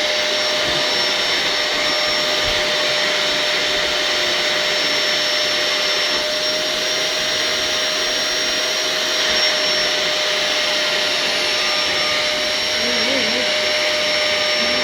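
Household vacuum cleaner running steadily, its motor giving an even whine over the rush of air.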